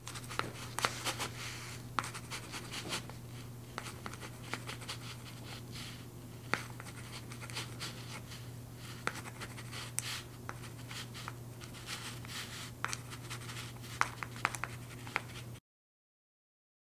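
Stylus tip tapping and scratching on a tablet's glass screen in quick, irregular strokes while handwriting, over a steady low hum. The sound cuts off suddenly near the end.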